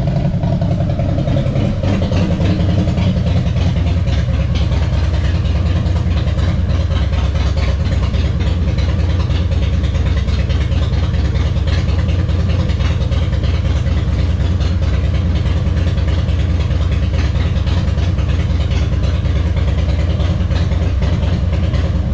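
Harley-Davidson V-twin motorcycle engine idling loudly, settling down from a slightly higher idle over the first couple of seconds and then running steady.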